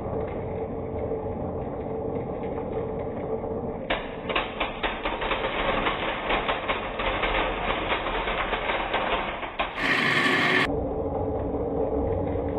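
Marbles rattling down a wooden HABA marble run track: a dense, rapid clatter of clicks that starts about four seconds in and runs for about six seconds over a steady hum. Near the end comes a short, bright burst of noise lasting under a second.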